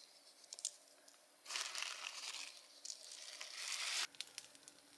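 Plastic bag or packet crinkling for about two and a half seconds, starting about a second and a half in and stopping abruptly, with a few faint clicks before and after.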